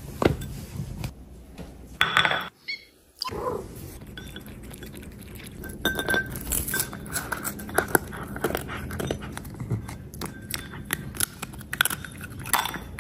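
Cats eating close up: wet chewing and licking, many small irregular clicks, with occasional clinks against a ceramic plate.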